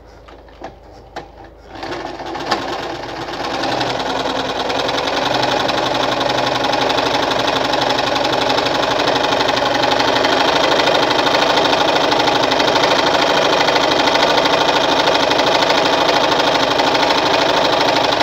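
Victoria Nuzstitch ZZ-570 electric sewing machine stitching at a short stitch length. A few light clicks come first; it starts about two seconds in, picks up speed and then runs steadily.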